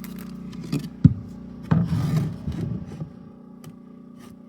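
Floorboards being handled and fitted during a dry fit: a sharp knock of wood about a second in, then board rubbing and scraping against board for about a second, followed by a couple of light clicks.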